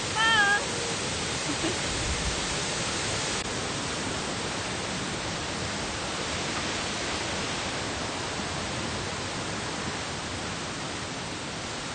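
Steady, even rushing noise of falling water from a nearby waterfall and creek, with a short bit of a voice at the very start.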